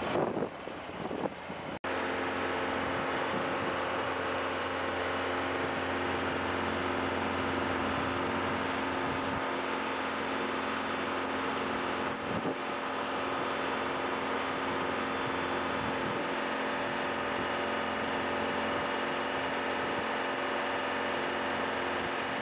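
Wind buffeting the microphone, then after an abrupt cut about two seconds in, the steady drone of the 70 HP Yanmar liquid-cooled diesel engine powering a mobile reload conveyor, running at a constant speed as the belt carries dirt off into a truck.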